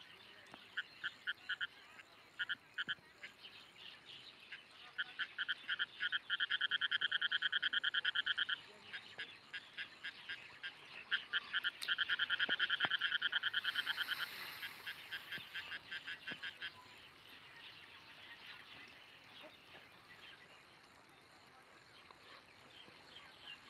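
An animal calling in rapid trains of pulses: a few short bursts, then two longer trills of a couple of seconds each, then fainter bursts that die away in the second half.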